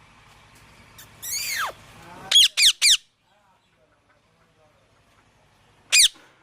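Green parrot calling loudly: a long downward-gliding screech, then three quick shrill squawks, and one more squawk near the end.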